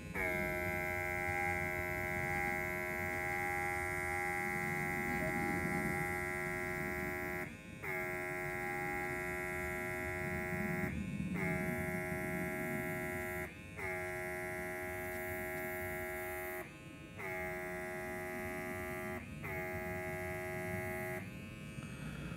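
Worx WX742 Maker X airbrush's built-in mini compressor running with a steady high-pitched hum while paint is sprayed. It cuts out briefly five times and starts again each time.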